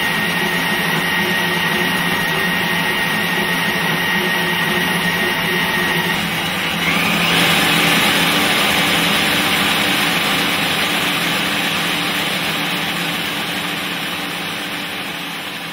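MAUCOTOOLS C40 DUAL SYSTEM portable boring machine running, its boring bar turning and cutting steel inside the bore: a steady machine hum with a high whine. About six seconds in the whine stops and a louder rushing machine noise takes over, slowly fading near the end.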